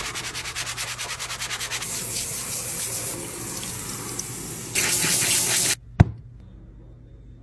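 A sponge scrubs a black kitchen sink in quick, even strokes. Then running water from a pull-down faucet sprayer rinses it. About six seconds in comes a single sharp click from pressing a pump soap dispenser.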